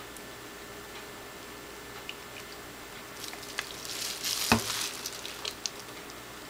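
Handling noise as plastic dye squeeze bottles are swapped over a plastic-covered table: quiet room tone at first, then crinkling of plastic and a few light clicks from about three seconds in, with one sharp knock about four and a half seconds in.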